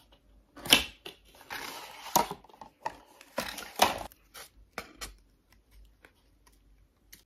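Cardboard perfume box being opened by hand: flaps pulled open and an inner box slid out, a series of sharp scrapes and rustles, loudest about a second in and again near four seconds.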